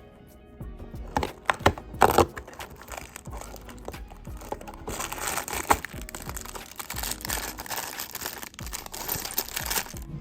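Packaging for a Lego advent calendar set crinkling and rustling as it is handled and torn open, with a few sharp cracks between one and two seconds in.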